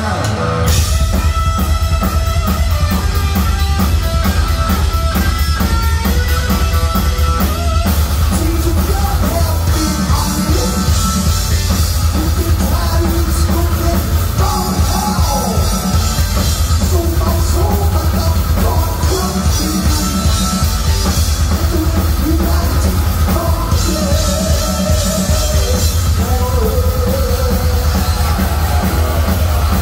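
A heavy metal band playing live: distorted electric guitar, bass and a driving drum kit with cymbals, with singing over it.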